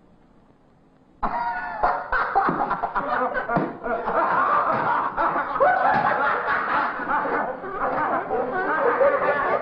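A group of teenage boys laughing together: near silence for about a second, then the laughter starts all at once and carries on loud and unbroken.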